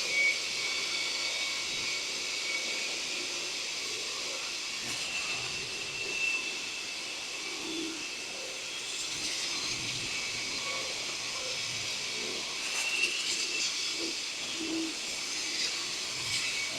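BODA BLC-420 brushless concrete saw running with its 420 mm blade cutting into a concrete floor: a steady hiss with a high-pitched whine that wavers slightly in pitch.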